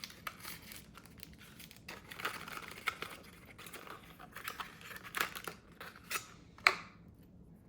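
A small cardboard accessory box is opened and its packaged contents handled. The packaging crinkles and rustles, with scattered clicks and taps; the sharpest click comes near the end.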